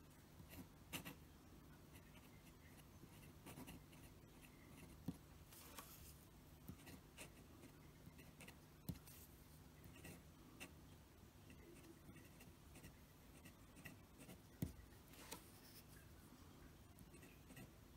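Faint scratching of a Parker Premier fountain pen's nib on brown paper as cursive is written stroke by stroke, with a few sharper clicks.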